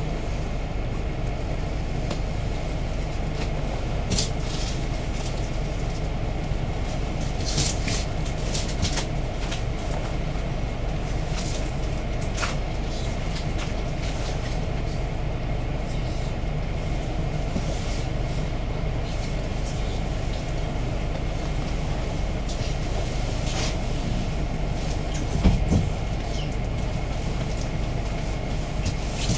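Inside the cabin of a GAZ-A64R42 Next minibus standing still: a steady low engine rumble at idle, with scattered small rattles and clicks, and a louder knock about 25 seconds in.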